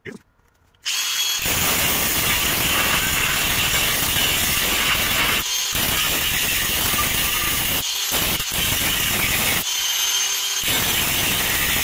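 Makita DGA504Z cordless 125 mm angle grinder cutting through 3 mm steel plate with a cut-off disc: a loud, steady grinding that starts about a second in and breaks off briefly a few times, the longest break near the end.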